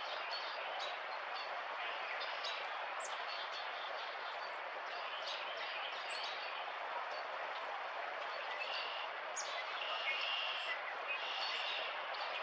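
Small birds chirping in short, scattered calls over a steady background hiss of outdoor ambient noise.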